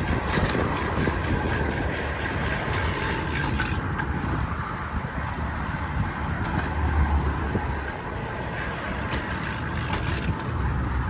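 Steady rushing noise of a moving bicycle ride: wind on the microphone over a low rumble of road noise.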